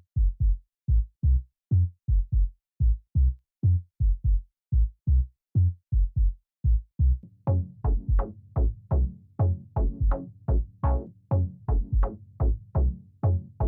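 Electronic background music: a drum-machine beat of deep, regular kick-drum thumps, with sustained synth tones filling in about seven and a half seconds in.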